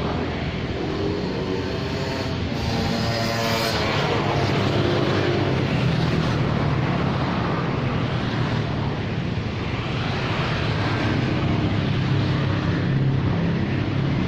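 Steady urban road traffic, with motor scooters and cars passing close by. About three seconds in, one passing vehicle's engine hum slides in pitch as it goes by.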